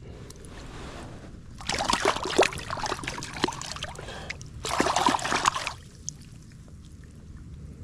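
Water splashing in two bursts, a longer one of about two and a half seconds and then a shorter one of about a second, as a small hooked fish thrashes at the surface while being landed. A low wind rumble runs underneath.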